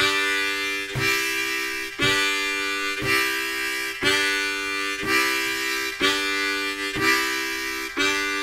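Diatonic harmonica in C playing chords on holes 1, 2 and 3, alternating draw and blow chords, one chord per beat at about one a second: the basic rhythm exercise for a harmonica train sound.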